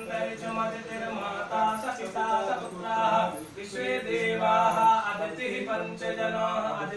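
A male voice chanting Sanskrit Vedic peace mantras in a steady, sing-song recitation, without break.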